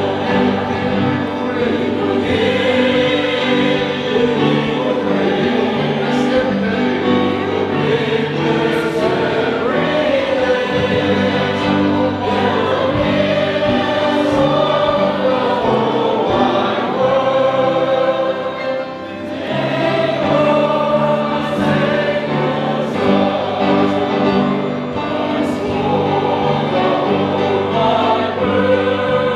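A choir singing a hymn in several-part harmony, with long held notes and a brief break between phrases about two-thirds of the way through.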